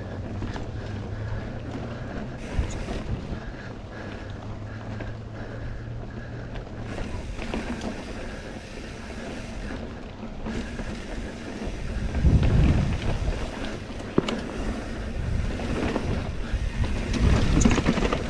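Riding a titanium mountain bike on a dirt and rock trail: wind buffeting the camera microphone over the rumble of the tyres, with scattered knocks and rattles from the bike. The rumble grows louder about twelve seconds in and again near the end.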